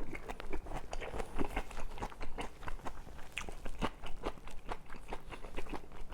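A person chewing a mouthful of braised pork and kimchi close to the microphone: quick, irregular mouth clicks and crunches, several a second.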